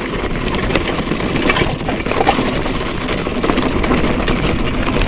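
Mountain bike descending a rocky dirt trail: tyres crunching over loose stones, with the bike rattling continuously.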